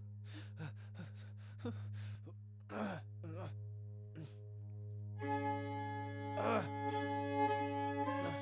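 Horror film score: a steady low drone under a run of short, soft knocks, then a sustained bowed-string chord that comes in about five seconds in and holds.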